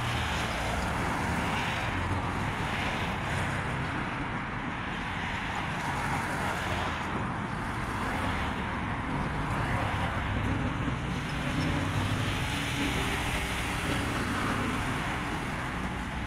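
Street traffic: cars and a small truck driving past one after another close by, a steady wash of tyre and engine noise that swells gently as each vehicle goes by.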